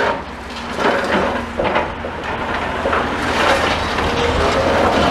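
Demolition plant working on a brick building: a steady engine rumble under a dense clatter of breaking masonry, with a few sharper knocks in the first two seconds.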